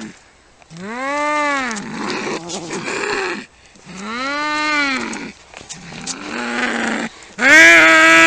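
Cats yowling in a fight: three long, drawn-out moaning calls that rise and fall in pitch, with raspier growling between them.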